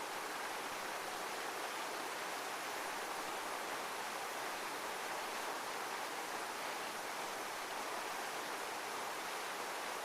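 Heavy rushing water, like a waterfall: a steady, even hiss with no rise and fall.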